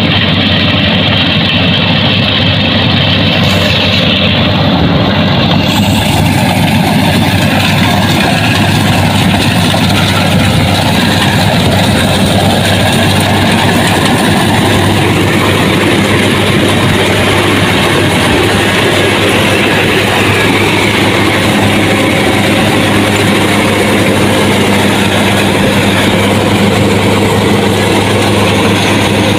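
Rice combine harvester's engine running with a steady, even drone.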